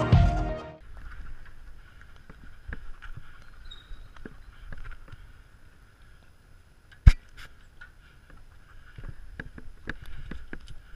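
Background music cutting away in the first second, then faint scattered clicks and light knocks, with one sharp knock about seven seconds in.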